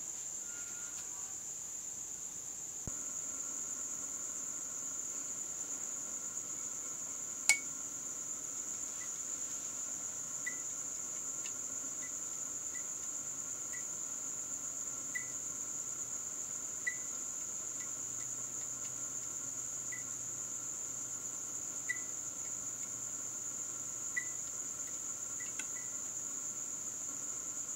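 Opened Philips SL Prismatic lamp being powered up: a click about three seconds in, then a faint steady hum from its magnetic ballast, with one sharper click a few seconds later and small irregular ticks as the starter tries to strike the tube. The tube's cathodes glow but do not strike and burn out.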